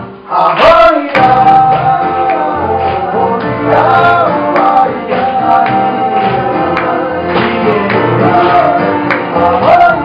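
Live acoustic guitar strumming under a male lead voice singing, with a second male voice singing along. The music drops away briefly just after the start, then carries on.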